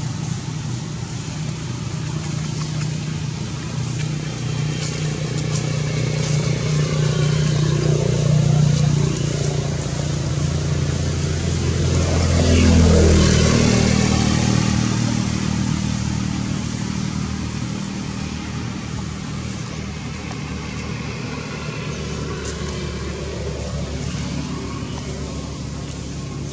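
A motor vehicle driving past, its engine getting louder toward the middle, dropping in pitch as it goes by about halfway through, then fading away.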